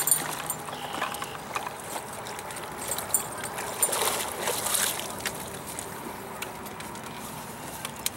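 A hooked carp thrashing and splashing at the water's surface as it is scooped into a landing net. The splashes come in bursts that are strongest in the middle.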